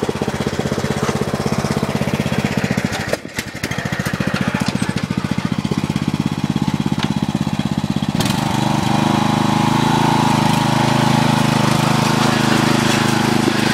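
Riding lawn mower's engine running under load as it is driven through a mud hole. Its note dips briefly about three seconds in, then from about eight seconds in it runs louder and steadier.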